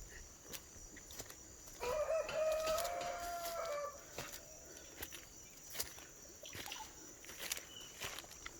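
A rooster crows once, about two seconds in: a single drawn-out call lasting about two seconds, rising at the start and then held. Faint footsteps tick along underneath.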